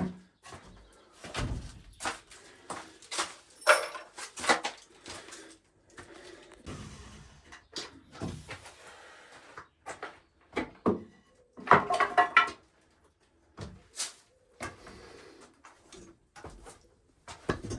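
Wooden shelving being dismantled and handled: irregular knocks, thuds and clatter, with louder bunches of knocks around four seconds in and again around twelve seconds in.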